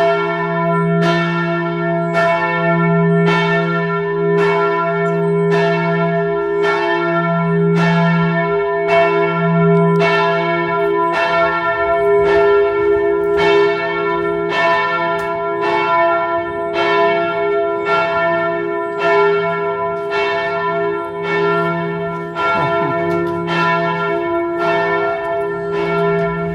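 Church bell ringing in the cathedral tower, loud and heard up close. It is struck about once a second, and each stroke rings on into the next.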